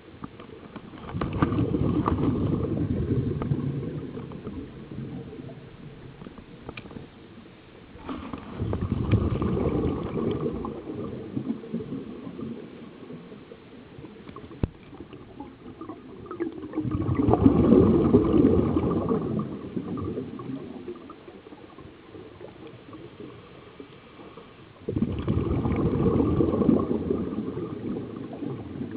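Scuba diver's exhaled breath bubbling out of the regulator in four bursts, each a few seconds long and about eight seconds apart, with quieter stretches between.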